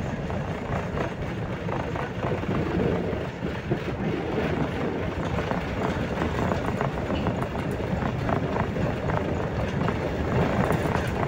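RVZ-6M2 tram running along the rails, heard from inside the car: a steady rumble of wheels on track with light, rapid rattling.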